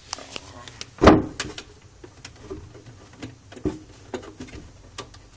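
Handling knocks and clicks as a home modem is handled and switched off: a loud knock about a second in, a second knock later, and scattered small clicks and taps.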